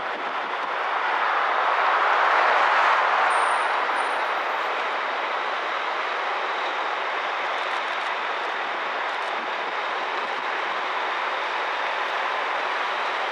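Steady hiss of road traffic, with no engine tone standing out, swelling louder for a couple of seconds about two seconds in, then holding level.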